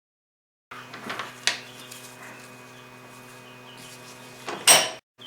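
Steady electric hum from workshop machinery starting up out of silence, with a few light knocks early on and one loud, sharp clank near the end.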